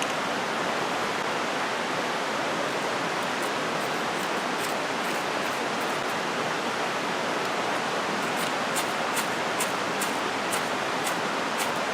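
Steady rushing of a creek's water. From about three seconds in, short sharp high scrapes of flint and steel striking come every so often.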